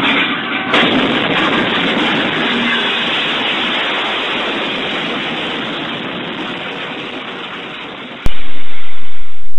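A locomotive hitting a truck at a crossing, heard from the cab: a loud rushing din with a sudden jolt under a second in as the truck goes up in a fireball, then a noisy rumble that slowly dies away, with a single click near the end.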